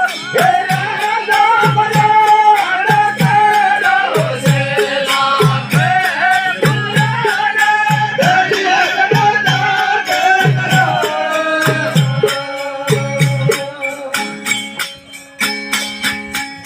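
Sindhi kafi folk music: a gliding, ornamented melody over a steady low drum beat, with rattling percussion clicking throughout. From about twelve seconds in, the gliding line gives way to steadier held notes.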